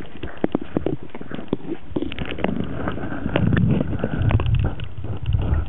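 Underwater sound of a Welsh corgi dog-paddling close to the microphone: irregular clicks and knocks of water and paddling strokes, with a low churning rumble of moving water building from about three seconds in.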